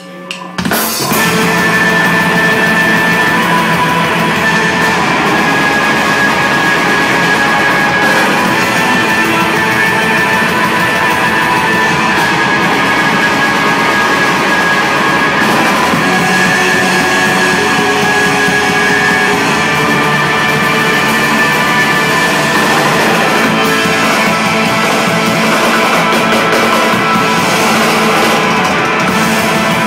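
Black metal band playing live: distorted electric guitars and a drum kit in a loud, dense, unbroken wall of sound that kicks in about half a second in.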